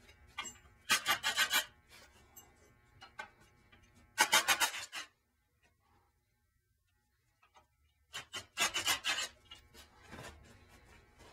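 Milwaukee 3/8-inch-drive cordless impact wrench hammering in three short bursts, each under a second, loosening the caliper bolts on a rear disc brake.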